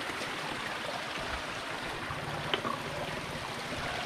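Small mountain stream running steadily, with one short click a little past halfway.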